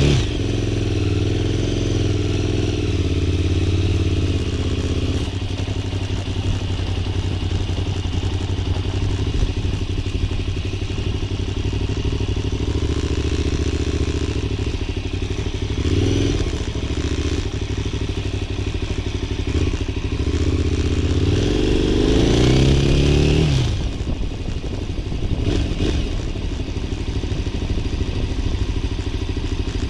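2006 KTM 990 Super Duke's V-twin engine running as the bike is ridden at low speed. It revs up briefly a few times, most strongly about three quarters of the way through, where the pitch climbs for a couple of seconds and then falls away suddenly as the throttle is closed.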